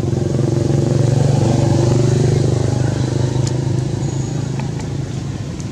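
A motor vehicle engine running with a steady low hum, swelling over the first couple of seconds and then easing off.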